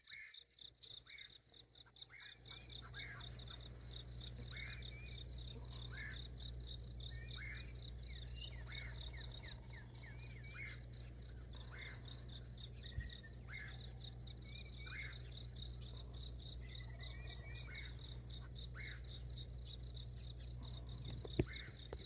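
A steady, high insect trill runs throughout, with short bird call notes scattered across it, over a low steady hum.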